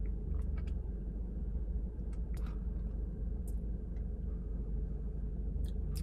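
Steady low hum inside a car cabin, with a few faint clicks and mouth sounds as an iced drink is sipped from a lidded plastic cup and swallowed.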